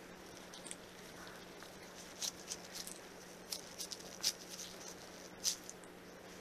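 Gloved hand grabbing and squeezing shredded mozzarella in a glass bowl: scattered short crackles and squishes, the loudest a little past the middle and about a second before the end.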